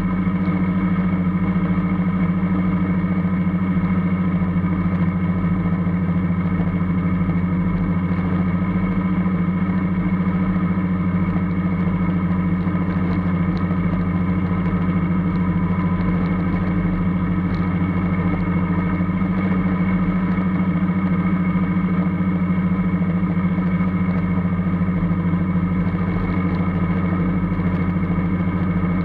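Formula Student race car's engine heard from the cockpit, running at a steady, unchanging speed with a constant hum.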